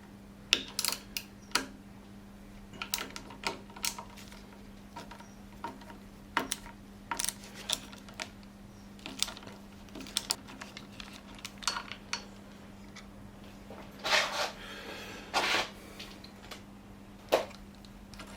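Irregular clicks, knocks and metal clinks of small parts and tools being handled, with a rattle about fourteen seconds in, over a steady low hum.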